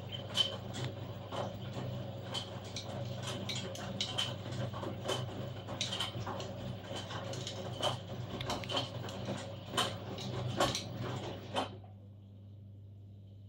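LG 1409TDS6 direct-drive front-loading washing machine tumbling a load: irregular knocks of laundry dropping in the drum over a steady low hum. The tumbling stops abruptly near the end, leaving only the hum.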